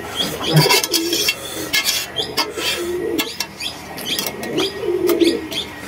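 Spoon and plate clinking and scraping on a steel eating plate during a meal of noodles, with a few short, low cooing sounds in between.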